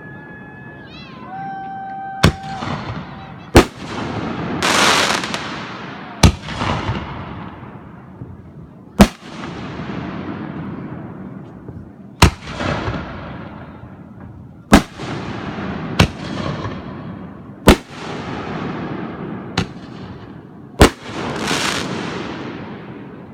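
Aerial fireworks exploding: about ten sharp, loud bangs, one every one to three seconds, each followed by a fading crackle.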